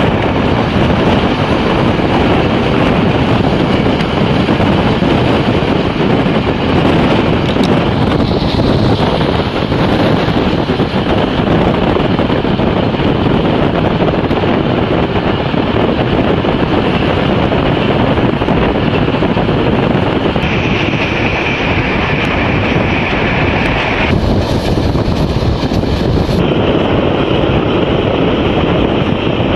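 Wind buffeting the microphone over the steady running noise of a passenger train, heard from an open carriage window. A higher-pitched hiss is added for a few seconds about two-thirds of the way through.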